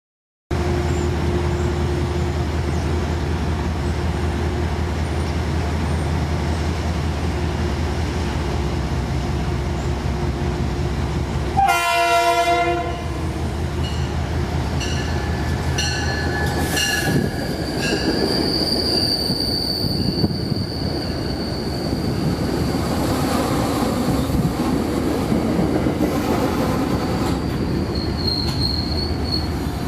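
Metro-North commuter train running into a station, its engine giving a steady low rumble. About twelve seconds in comes one horn blast lasting about a second. From about fifteen seconds on, high thin wheel and brake squeals ring out as the train slows for its stop.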